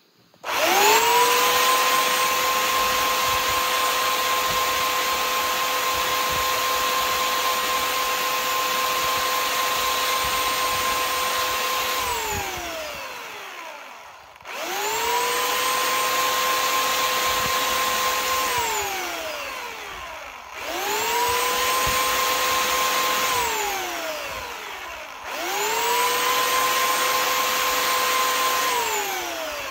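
Electric grinder switched on four times, each time spinning up fast to a steady whine with a hiss over it, then switched off and coasting down with a falling whine. The first run lasts about twelve seconds and the later ones a few seconds each. It is grinding steel off a screw-in arrow field point.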